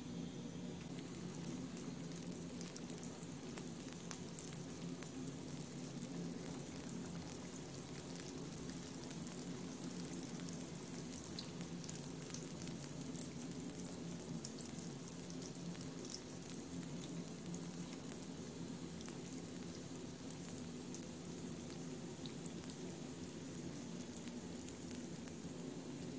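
Balls of mandazi dough deep-frying in hot oil in a pan: a steady sizzle with many small crackles and pops. The crackling picks up about a second in.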